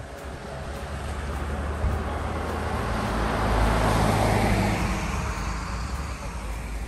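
A road vehicle passing by: its tyre and engine noise swells to a peak about four seconds in, then fades.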